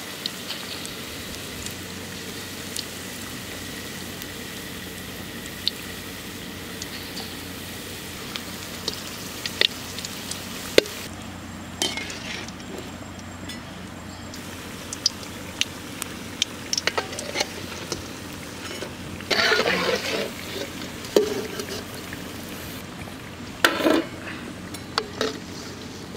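Plantain bajji deep-frying in hot oil in an aluminium kadai: a steady sizzle with scattered pops and crackles. A few louder scrapes and clatters from a metal slotted skimmer working in the pan come in the last several seconds.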